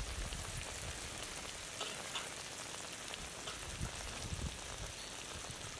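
Pomfret pieces frying in oil and onion–chilli masala in a pan over a wood fire: a steady sizzle full of fine crackles.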